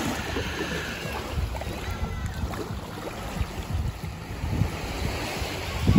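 Small sea waves breaking and washing over sand at the water's edge, with wind rumbling on the microphone.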